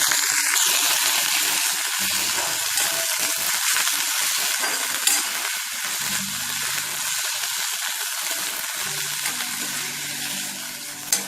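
Thoothuvalai (Solanum trilobatum) leaves sizzling as they are sautéed in a kadai, the hiss slowly quietening as the leaves wilt. A sharp knock about five seconds in and a louder one near the end.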